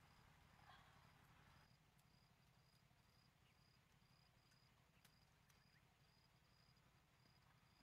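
Near silence: a faint cricket chirping about twice a second over a low hum, with a faint hiss that stops about a second and a half in and a few soft clicks.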